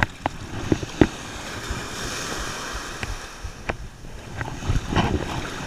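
Shallow ocean surf washing and breaking around the legs, with a few sharp knocks in the first second and again near the end.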